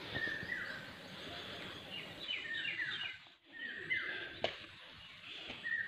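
Small birds chirping: short falling chirps, often in pairs, recurring every second or two, with a quick run of chirps a couple of seconds in. A brief click comes just after the middle.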